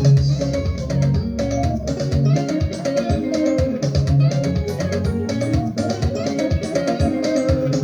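Upbeat gospel praise music led by plucked electric guitar over bass guitar and a steady beat.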